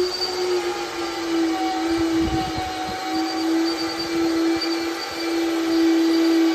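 A machine running with a steady hum held at one constant pitch, with some low rumbling about two seconds in.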